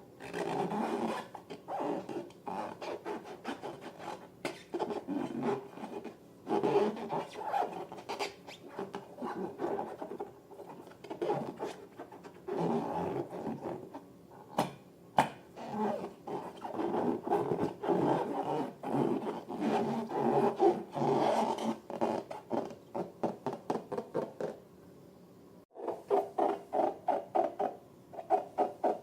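Close-up handling of rubber balloons and slime: an irregular run of rubbing and scraping noises. Near the end it turns into a quicker, rhythmic run of squeezes, about three or four a second.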